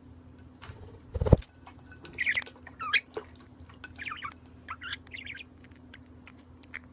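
A white parakeet bathing in a glass of water: a loud thump about a second in, then short warbling chirps several times over, with its wings splashing in the water.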